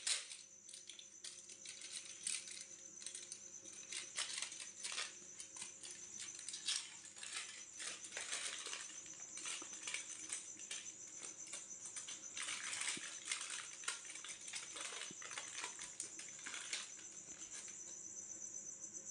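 Aluminium foil crinkling and rustling in irregular bursts as it is peeled open by hand.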